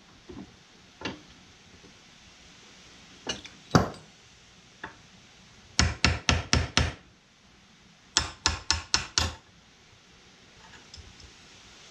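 Hammer tapping a connecting rod cap onto a tractor connecting rod held in a bench vise, seating the cap: two single taps, then two quick runs of about five taps each.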